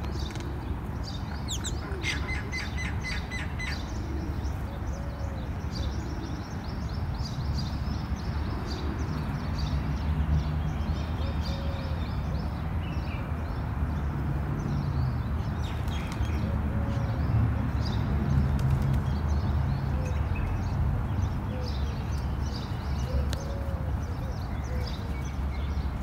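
Small birds chirping, short high calls scattered throughout, with a low soft coo from the feeding pigeons every few seconds, over a steady low rumble of background noise.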